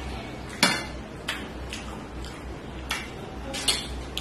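A hand mixing rice and curry on a stainless steel plate, with a few sharp clinks against the metal. The loudest clink comes about half a second in, and softer ones are spread through the rest.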